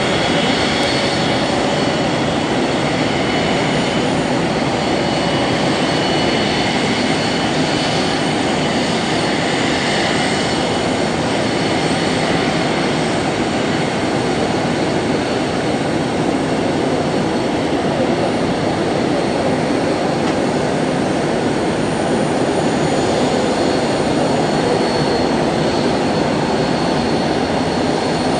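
Avro RJ100 jet's four Honeywell LF507 turbofans running at taxi power: a steady jet rush with a thin, high, steady whine over it.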